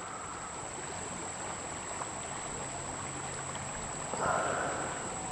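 Steady wash of river water flowing and lapping around a canoe, with a brief slightly louder sound about four seconds in.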